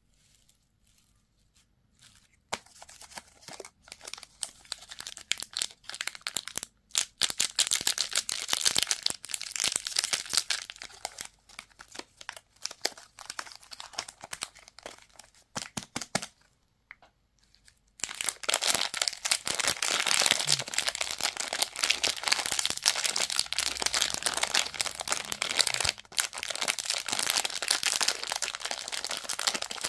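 Plastic candy wrappers crinkling and tearing as they are opened by hand, in two long stretches of dense crackling with a pause of about two seconds between them.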